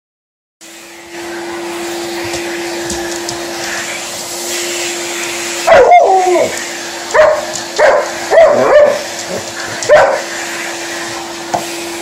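Canister vacuum cleaner switched on near the start, spinning up and then running with a steady hum. From about halfway through, an Alaskan Malamute barks at it in about five short, pitched calls, the first one longer and bending in pitch.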